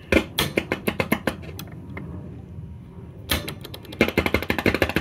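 Rapid, irregular clicking and crackling in two spells as the push-button selector keys of a 1960 Grundig valve console stereo are worked, with the second spell starting a little past halfway. The crackle is typical of dirty switch contacts.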